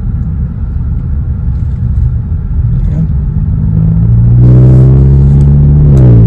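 Exhaust of a 2021 VW Tiguan fitted with a B2B Fab Tiggypipe, heard from inside the cabin while driving: a steady low rumble, then from about three and a half seconds in the engine note grows louder and rises under acceleration, dropping sharply near the end as the transmission upshifts.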